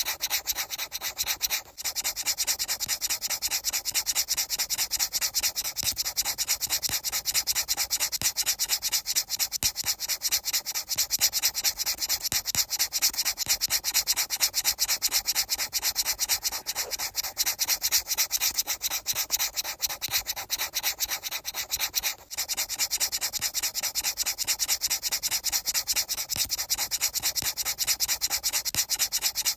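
Fast, even scratchy rubbing strokes, many to the second, keeping a steady rhythm, with two brief breaks: one near two seconds in and one a little after twenty-two seconds.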